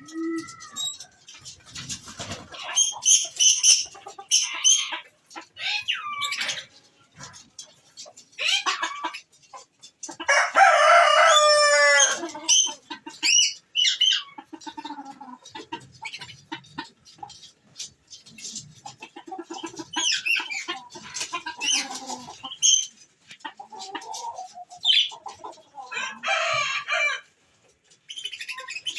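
Chickens clucking and roosters crowing in a run of separate calls, the loudest a long crow about ten seconds in.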